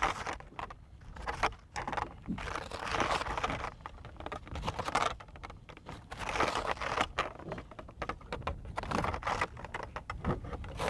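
Irregular rustling with scattered light clicks: hands paying out a trotline and handling its foam float.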